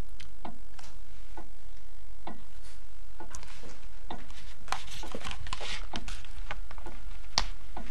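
Scattered soft taps and clicks of things being handled on a table: a telephone handset put down and playing cards moved about, with the taps coming more often after about four seconds. A steady low hum runs underneath.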